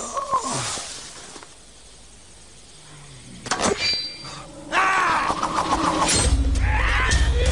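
Film fight soundtrack: a sudden hit at the start, then a sharp strike of a blade chopping into wood with a brief metallic ring about three and a half seconds in. Loud dramatic music with a deep bass comes in after about five seconds.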